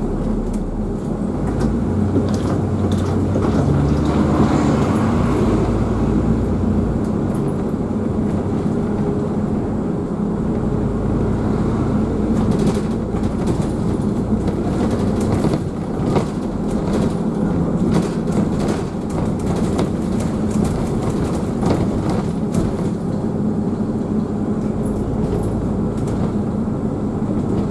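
Double-decker bus driving along, heard from inside on the upper deck: a steady low engine and road rumble with a hum, and scattered light clicks.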